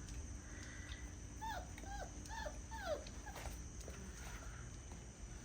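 Husky puppy whimpering: a quick run of about five short whines, each falling in pitch, about a second and a half in.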